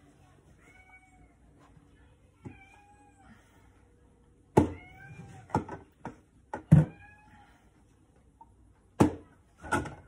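A cat meowing about four times in short calls that rise and fall in pitch, mixed with sharp knocks and clinks of glass canning jars being moved and set down. The jar knocks are the loudest sounds and come from about halfway through to the end.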